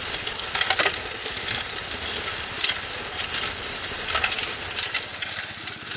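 Gold Fox trommel running with its spray bars at full pressure: a steady hiss of water spraying inside the turning barrel, with many small knocks of clay and gravel tumbling as it is broken up.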